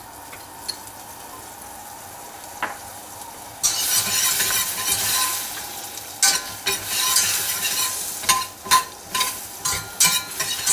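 Butter melting and sizzling in a hot stainless steel saucepan while it is stirred around the pan. The sizzle starts suddenly about four seconds in, and quick irregular scrapes of the stirring against the pan come in over it.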